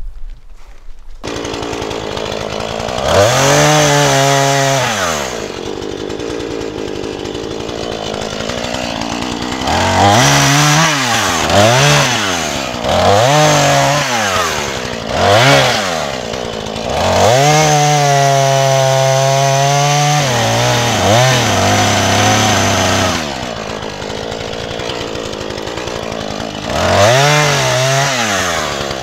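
Husqvarna chainsaw starting about a second in, then idling and being revved again and again: a run of short revs, one longer held rev and a last rev near the end.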